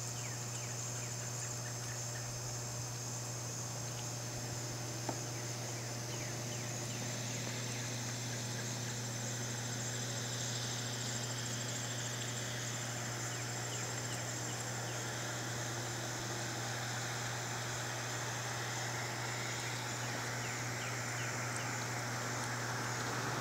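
Insects trilling steadily in the background over a steady low hum. A rush of road noise swells near the end.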